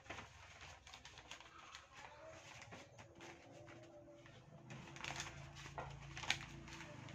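Thin black plastic polybag being handled and crinkled, with scattered rustles that grow busier in the second half and one sharp snap of the plastic about six seconds in.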